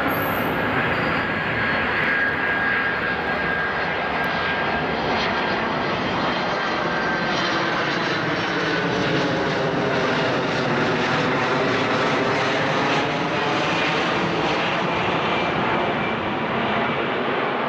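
Steady mechanical running hum and whirr of a JR West 521 series electric train standing at a platform, its on-board equipment and blowers running.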